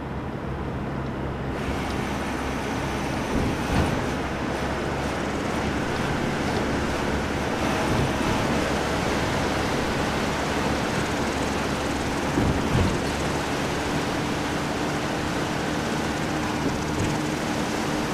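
Steady rushing of river rapids, swelling in over the first couple of seconds, with a low hum underneath and a couple of brief louder bumps.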